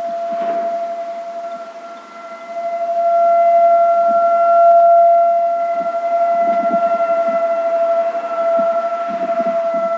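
Whelen 1,600 W rotating speaker siren sounding a steady, unwavering tone. It grows quieter and louder as the rotating speaker array sweeps around, dipping about two seconds in and then swelling loud.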